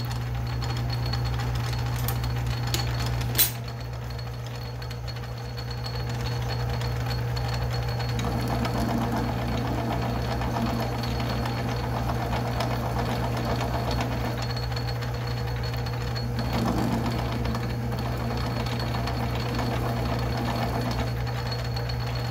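Atlas metal lathe running steadily under power with a steady hum. A single sharp click comes about three and a half seconds in. From about eight seconds in until shortly before the end, a rougher cutting noise joins it as the tool takes a big chamfer on 4140 steel, cutting without chatter.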